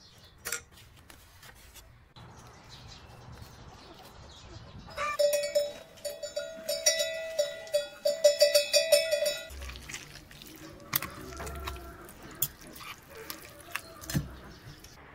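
Cowbells on grazing cattle clanking irregularly, loudest for about four seconds in the middle, with scattered clicks before and after.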